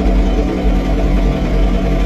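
John Deere 3046R compact tractor's diesel engine running steadily while it drives the snow blower, with a low, even drone.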